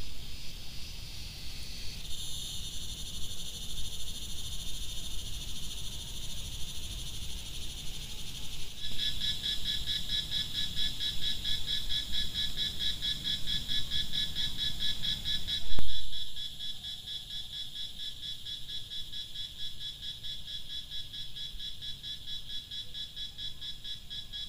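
A steady chorus of calling animals: a high, rapidly pulsing trill that grows louder and more clearly pulsed about nine seconds in, over a faint low rumble. A short louder sound swells briefly about sixteen seconds in.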